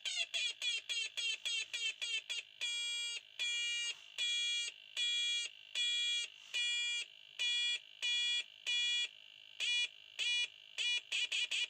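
Electronic sound machine producing a sequence of buzzy, alarm-like synthesized beeps. It starts with rapid short chirps, about five a second, changes after a couple of seconds to longer steady beeps about half a second each, and returns to quick chirps near the end.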